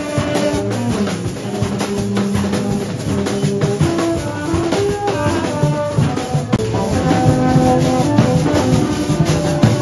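A street marching band playing: a carried drum beating a steady rhythm under short held notes from metal horns, one pitch after another.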